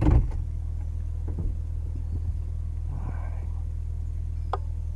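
Vehicle engine idling with a steady low hum, a brief knock right at the start and a single sharp click about four and a half seconds in.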